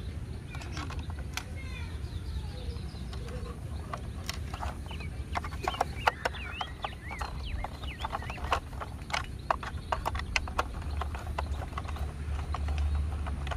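Irregular clicks and taps of hard plastic parts as a toy tow truck is handled and assembled, with a small screwdriver turning a screw into its plastic underside.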